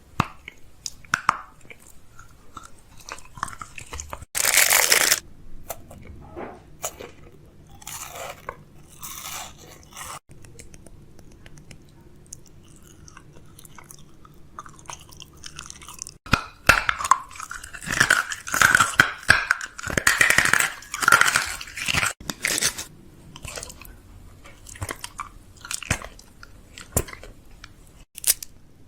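Close-up crunching and chewing sounds: irregular crisp bites and crackles, like someone eating crunchy food near the microphone.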